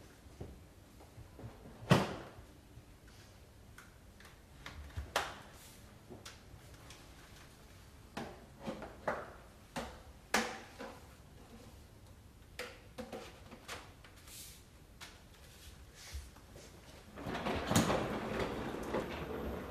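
Scattered sharp clicks and knocks of hard plastic parts of a washing vacuum cleaner being handled, about a dozen over the stretch, then a denser rattling and rustling for the last couple of seconds. The vacuum's motor is not running.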